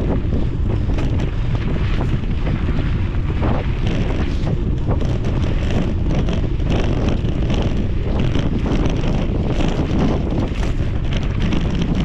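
Wind buffeting the microphone of a camera on a mountain bike riding a dirt singletrack, a steady low rumble. Frequent short clicks and rattles from the bike running over the rough trail come through it.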